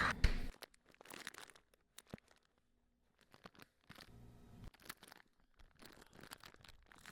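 Faint, scattered crinkling and rustling, broken by a few short sharp clicks.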